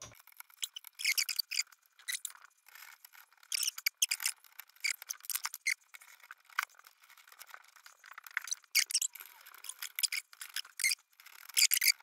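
Power supply cables and their plastic connectors being handled inside an open PC case: irregular light rustling, scraping and small clicks, busiest near the end.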